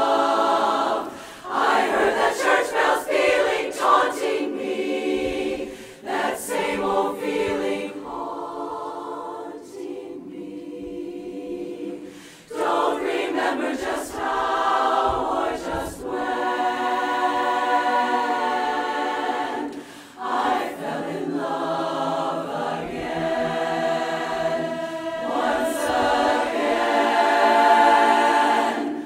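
Women's a cappella chorus singing in four-part barbershop harmony, phrases of full chords broken by short breaths. A softer passage comes about a third of the way in, and the singing swells to its loudest held chord near the end.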